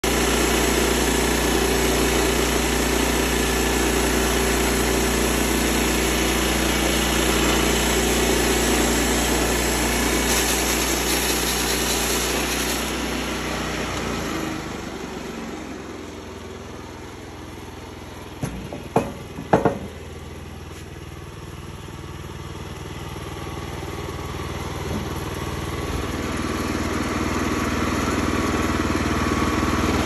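Wood-Mizer LX25 band sawmill running, its engine steady and loud while the band blade cuts through a squared timber. After about fourteen seconds the engine sound drops and stays lower. A few sharp knocks come about two-thirds of the way in, and the engine grows louder again toward the end.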